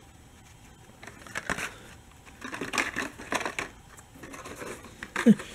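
Hot Wheels blister-card packages being handled: the cardboard backing cards and plastic blisters rustle and click in two bouts as one car is set down and the next picked up.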